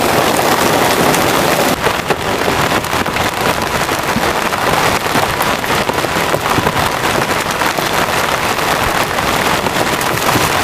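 Heavy rain falling, a dense steady hiss with many sharp drop hits close by.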